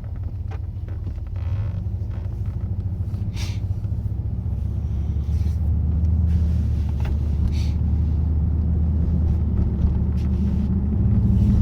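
Heard from inside the cabin while driving, a Pontiac Grand Prix GXP's LS4 V8 runs with a low steady drone that slowly grows louder and steps up near the end, with a few faint scattered ticks. The owner hears it as lifter noise that tells him the oil level may be low.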